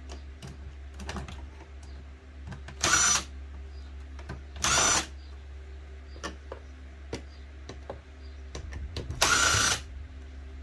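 Electric screwdriver running in three short bursts, about half a second each, as screws are driven out of a plastic electronics casing, with small clicks from handling parts in between.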